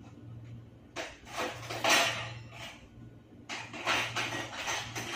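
Kitchen containers and utensils being handled: two short bouts of rustling and clattering, starting about a second in and again about three and a half seconds in, over a steady low hum.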